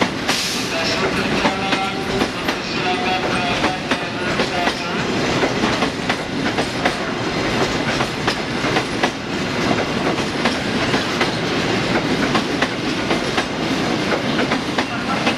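Container freight train passing close by, its flat wagons rolling in a steady rush of wheel noise with clickety-clack over the rail joints.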